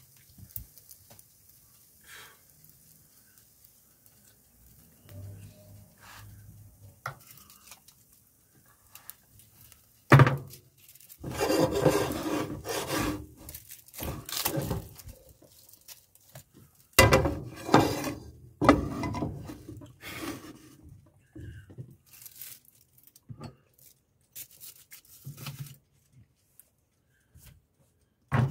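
A knife and crusty toasted bread scraping and rubbing in a nonstick frying pan. From about ten seconds in, louder bursts of scraping and knocks against the pan come as the toast is lifted and flipped.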